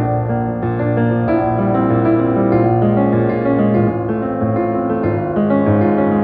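Piano music with sustained, overlapping notes at a steady level.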